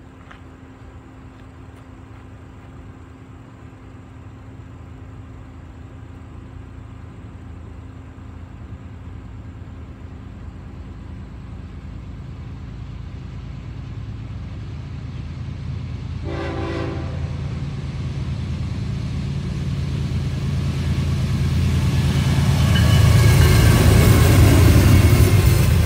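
Diesel locomotives of a CSX double-stack container freight train approaching, their engine rumble growing steadily louder, with one short horn blast about 16 seconds in. Near the end the lead locomotive passes close by and the noise is loudest, the container cars' wheels on the rails following.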